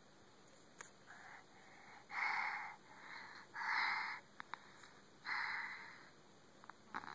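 A sleeping baby snoring: a run of raspy, snuffly breaths under a second long each, three louder ones about one and a half seconds apart with softer breaths between.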